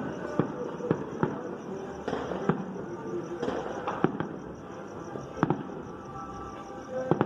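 Scattered distant gunshots: single sharp cracks at irregular intervals, about nine in all, which the listener takes for 9mm pistol fire. Faint music plays underneath.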